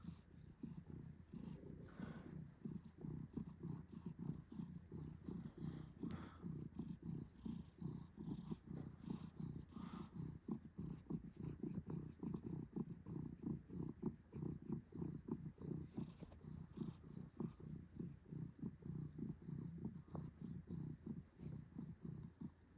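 Domestic cat purring: a low, fast-pulsing rumble that goes on without a break.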